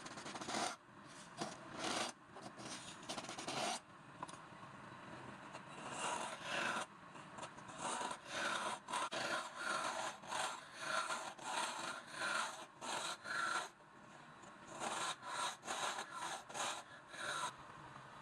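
A hand tool scraping back and forth on wood, as in sawing or rasping. The strokes are uneven at first, then settle into a steady rhythm of about two a second before stopping shortly before the end.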